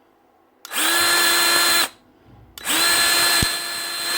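Milwaukee cordless grease gun's electric motor and gearbox running in two trigger pulls: a quick spin-up to a steady whine for about a second, a short pause, then a longer run that dips briefly in the middle. The motor and gearbox sound smooth and are working fine.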